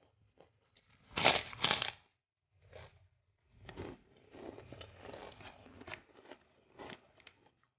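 Close-up chewing of crunchy food: two loud crunches about a second in, then several seconds of quieter crackly chewing.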